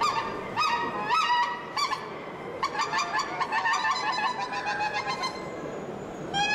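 Goose honking: short nasal calls repeated in quick runs, one over the first two seconds, a longer one from about two and a half to five seconds in, and a few more near the end, over a steady background hubbub.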